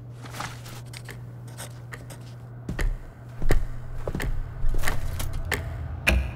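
Hard-soled shoes stepping across a studio floor, a regular walking pace of sharp steps starting about halfway through, after faint clicks and rustles of paper being handled over a low steady hum. Near the end a heavier thump as crumpled paper is dropped into a metal wastebasket.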